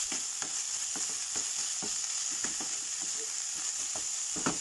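Ground beef, onion and carrot sizzling in hot oil in a frying pan as they are stirred, with a steady sizzle and the stirring utensil scraping and knocking against the pan about twice a second, one knock louder near the end.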